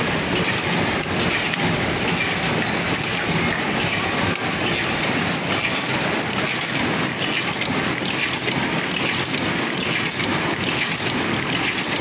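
Paper cup making machine running, a steady mechanical clatter from its feeding and forming mechanism.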